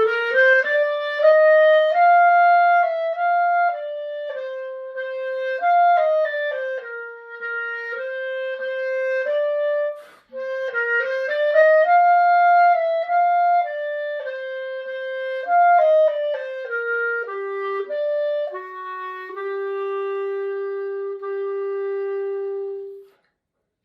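Unaccompanied solo melody on a single instrument, one note at a time, with a brief break partway through. It closes on a long held low note that stops shortly before the end.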